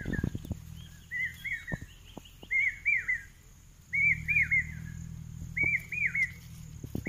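A bird calling over and over: pairs of short arched chirps, one pair about every second and a half, over a low steady rumble.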